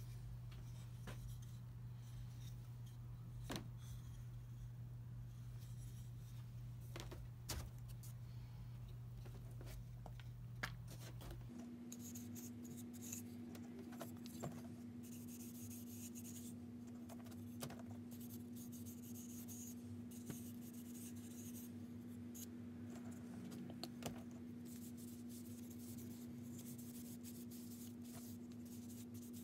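Soft rubbing and handling sounds with scattered small clicks as a rag works linseed oil into a walnut saw handle. Under them runs a steady low hum that jumps to a higher steady tone partway through.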